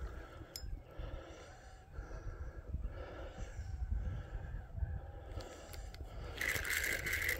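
Spinning reel and rod being handled and cranked, with low rumble from handling and wading. Near the end comes a loud buzz lasting about a second, the reel's drag paying out line as the rod is swept up and a steelhead is hooked.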